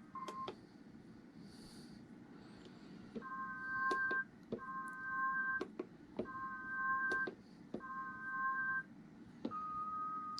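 Short, plain beep-like synthesizer chords from a beat being built on a Maschine Mk3, four of them about a second long each, starting about three seconds in, then a different held chord near the end. Sharp clicks of the controller's pads and buttons being tapped fall among them.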